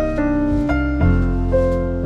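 Background piano music, notes changing about every half second over a sustained bass.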